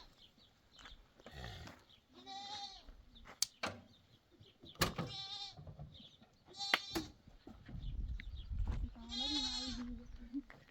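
Goats and sheep bleating: about five separate calls with a quavering tremble, the loudest near the end. A few sharp clicks fall between the calls.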